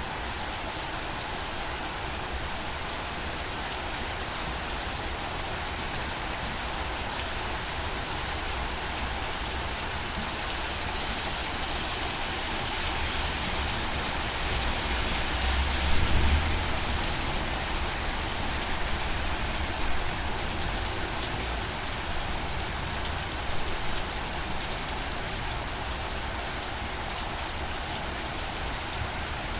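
Steady rain falling on a surface: a continuous, even hiss of drops. It swells slightly about halfway through, with a brief low rumble near the middle.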